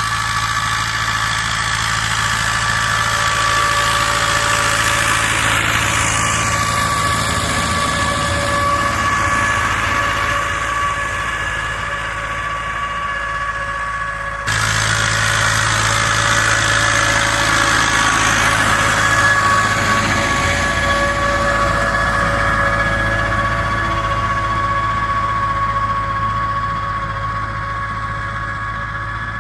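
YuMZ-8040 tractor's diesel engine running steadily under load while ploughing, with a steady high whine over the engine note. About halfway through the sound jumps abruptly a little louder.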